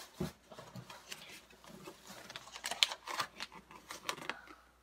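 Quiet, irregular clicks and light rustles of hands handling small objects, with a few sharper clicks among them.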